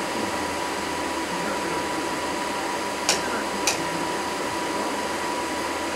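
Video projector's cooling fan running with a steady whir. Two short sharp clicks come a little past the middle, about half a second apart.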